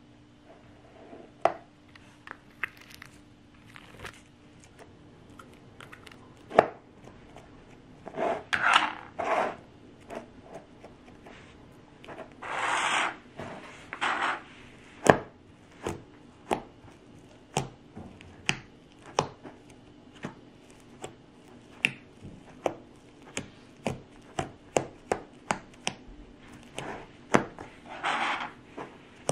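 Fingers pressing and poking fluffy slime in a plastic tub: a long run of sharp little clicks and pops, coming faster near the end, with a few short squishing rushes in between.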